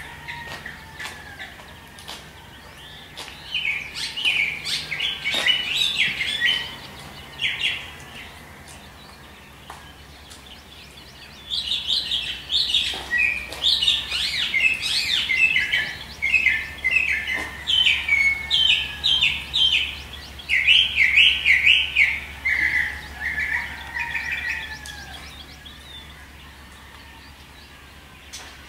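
Songbirds singing at dawn: spells of rapid, high chirping phrases, with a lull of a few seconds between the first short spell and a longer second one that fades out near the end.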